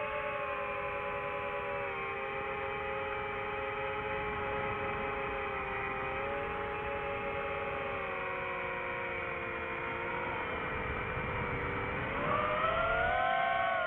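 FPV quadcopter's electric motors whining, several steady tones together, drifting slowly lower in pitch, then rising and getting louder near the end.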